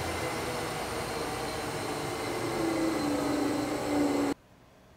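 Extrema EP-216 top-and-bottom planer running with its helical cutterheads driven by 20 hp and 10 hp motors: a steady whirring hum with several steady tones. It cuts off suddenly about four seconds in.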